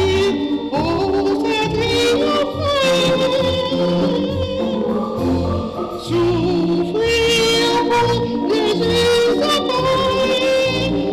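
A woman singing a church solo into a microphone, holding long notes with vibrato over a low instrumental accompaniment.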